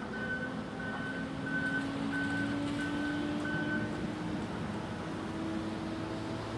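Diesel engine of heavy logging equipment running unseen, its note rising slowly, with a backup alarm beeping evenly about every two-thirds of a second until about four seconds in.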